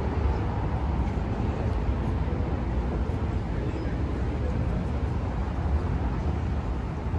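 Steady road traffic noise of a city street, a continuous wash with a heavy low rumble.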